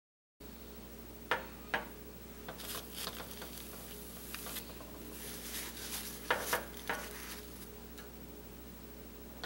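Paper napkins rustling as they are handled in metal napkin holders, with sharp clicks and knocks of the metal holders on the countertop: two a little over a second in and a few more around six to seven seconds.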